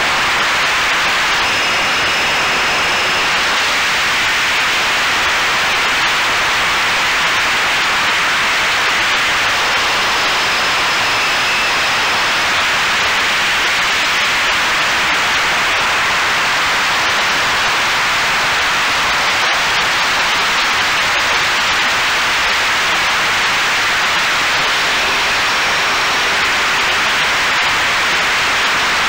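Steady, loud rushing hiss of airflow and propellers, heard from inside the cockpit of a radio-controlled OV-10A Bronco model in flight, with faint high whines that come and go.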